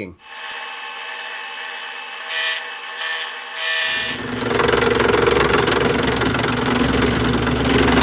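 Drill press running with an end mill, used as a makeshift milling machine: a steady motor hum at first, then from about four seconds in a louder, rougher sound as the end mill cuts into the metal part while the cross-slide vise is cranked to feed it.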